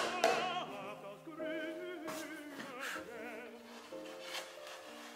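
Background music: a voice singing long, held notes with vibrato over soft sustained accompaniment, with a few faint knocks of wood.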